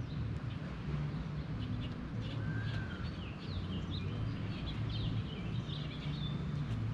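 Songbirds chirping and calling, many short high notes and quick falling whistles scattered throughout, over a steady low hum.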